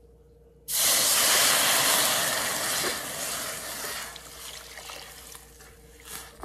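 Water poured into a hot stainless steel pot of corn and onions browning in butter: a sudden loud hiss and sizzle about a second in that fades away over the next few seconds.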